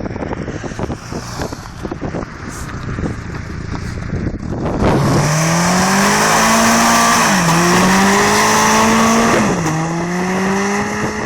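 Volkswagen Corrado's 1.8 16-valve four-cylinder KR engine accelerating hard through the gears: the engine note climbs three times with two quick drops where it shifts up. Before that, about five seconds of steady wind and road noise.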